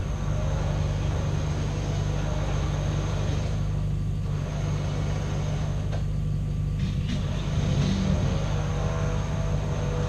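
Off-road 4x4's engine running steadily under load as it works through the obstacle, with a brief rise in revs about eight seconds in.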